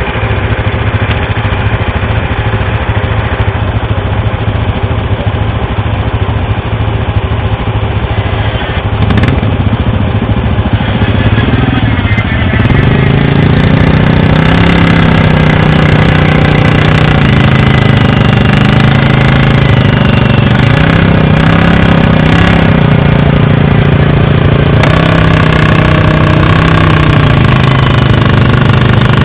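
ATV engines running in deep mud. About twelve seconds in, one is revved hard and held high, its pitch rising and dipping, as a stuck quad tries to drive out of the ruts. The revs ease off slightly near the end.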